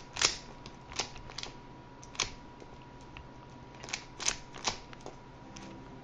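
Rubik's cube being turned with the feet: irregular sharp plastic clicks as the layers are twisted, about eight of them with pauses in between, over a faint steady tone.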